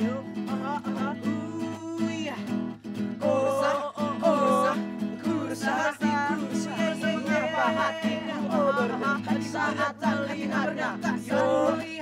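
Strummed acoustic guitar with hand drums and a group of young voices singing along, a live upbeat pop song.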